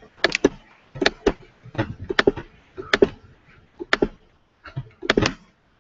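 Sharp, uneven clicking at a computer, about a dozen clicks with some in quick pairs, made while Photoshop is frozen and not responding.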